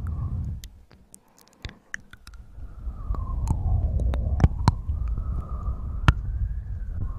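Close-up ASMR handling noise: a low rumbling rub with scattered sharp clicks and crackles, dying down briefly about a second in and building again after.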